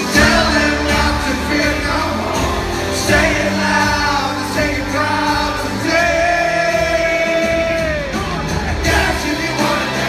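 Live rock band playing, a man singing over acoustic guitar; bass and drums come in right at the start. About six seconds in he holds one long note that falls away after two seconds.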